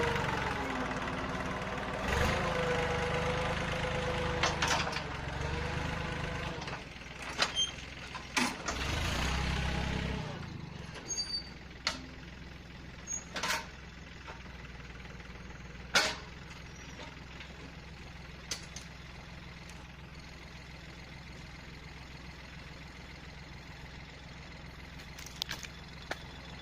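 Yanmar 1145 tractor's diesel engine running, its pitch shifting a little, then shut off about ten seconds in. After that there is only a faint steady background with a few scattered sharp clicks.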